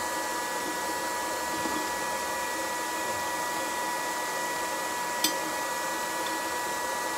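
Electric air blower running steadily with a whining hum, with one sharp metallic click about five seconds in.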